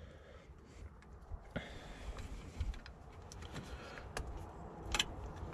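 A few faint, sharp plastic clicks from a multi-pin wiring-harness connector being handled and fitted together, the loudest about five seconds in, over a low steady rumble.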